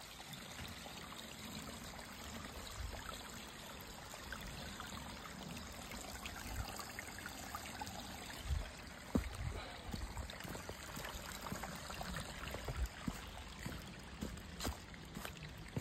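A shallow woodland stream trickling over rocks, with footsteps on wet rock and mud that come in as sharp knocks and low thumps from about halfway through.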